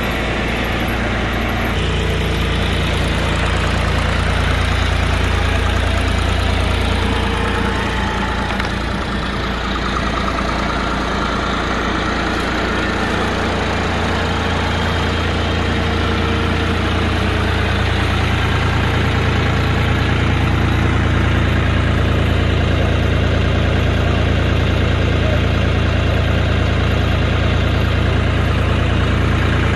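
John Deere 5405 tractor's diesel engine running steadily at a little over 1000 rpm, driving a PTO generator, with a deep, even hum.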